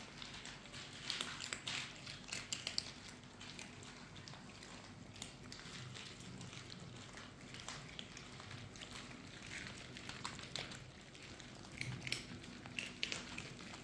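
Several cats crunching dry kibble: an irregular patter of small crunches and clicks, with bunches of louder ones about a second in and again near the end.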